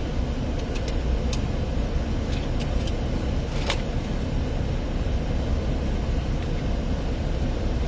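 Steady low rumble of a car driving, heard from inside the cabin, with a few light clicks in the first few seconds.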